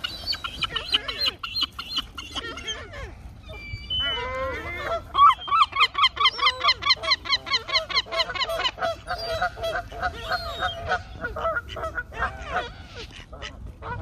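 Herring gull calling: a long, loud run of repeated calls at about four a second, starting about five seconds in. Higher, thinner bird calls come before it, and scattered calls after.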